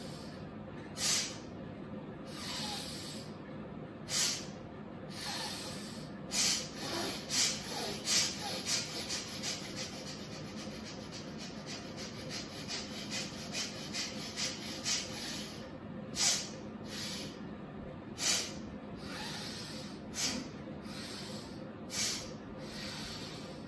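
A woman doing rapid yogic breathing (jalad shvasan), with forceful exhalations through the nose as hissing puffs. The puffs come a few seconds apart at first, speed up to a quick run of about three or four a second in the middle, then slow again near the end.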